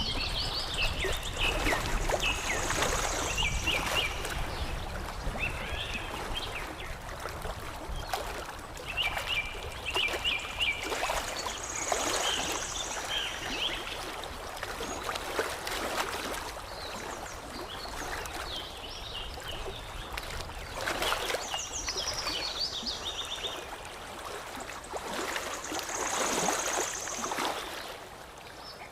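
Water lapping and trickling steadily while small songbirds chirp, with phrases of quick chirps and high thin trills returning every few seconds.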